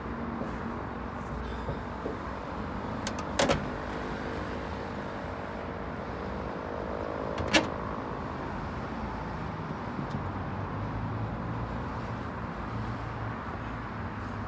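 Steady mechanical running noise, with a sharp double knock about three and a half seconds in and a louder single knock about seven and a half seconds in; a low hum rises near the end.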